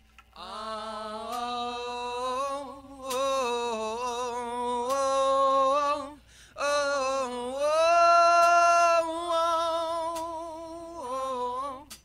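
Live voices singing unaccompanied, with no band playing. There are two long phrases of held, wavering notes, split by a brief pause about six seconds in, and a short closing phrase just before the end.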